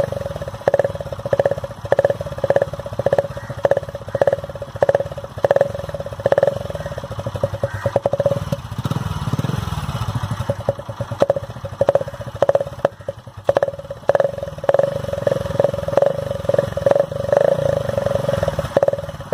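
Honda motorcycle engine running through its exhaust silencer, which has a tape-wrapped drink can wired over the outlet as a home-made add-on muffler. The exhaust note pulses rhythmically, about twice a second.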